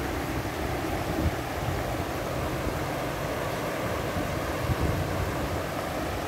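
Shallow mountain river running fast over stones and cobbles in low riffles: a steady rush of water.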